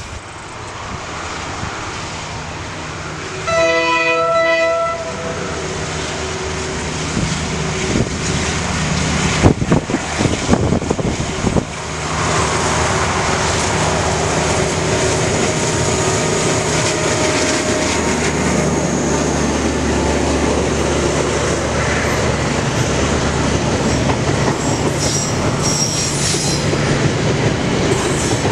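KiwiRail DL-class diesel-electric locomotive sounding its horn once, for about a second and a half, a few seconds in. It then runs past with its diesel engine working, followed by a long container freight train whose wagon wheels clatter on the rails.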